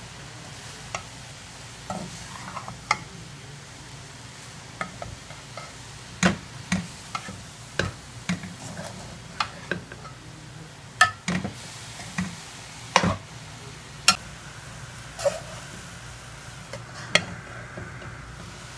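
A metal spoon scrapes and knocks irregularly against a metal pan as softened shredded cabbage and carrots are stir-fried over a high gas flame. A steady low sizzle from the frying vegetables runs underneath.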